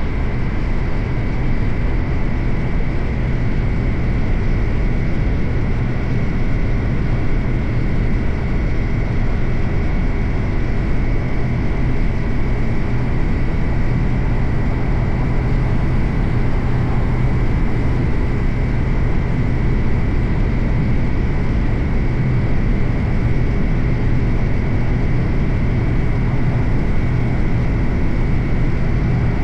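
Suzuki GSX-8R's 776 cc parallel-twin engine running at a steady cruising speed, holding one even pitch, under a steady rush of noise.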